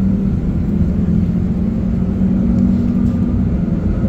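Tram running, heard from inside the passenger cabin: a steady rumble with a low motor hum that climbs slightly in pitch around the middle.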